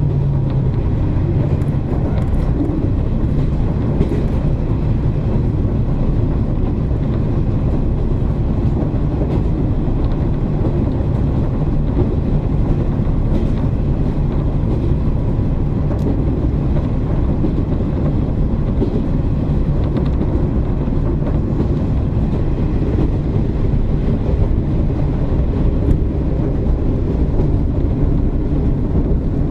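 Running noise inside a KiHa 47 diesel railcar: a steady diesel engine drone and wheel-on-rail rumble, with a few brief sharp clicks.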